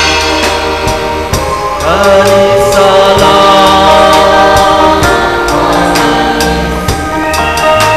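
Gospel song: several voices singing together over drums and instruments, with a regular drum beat.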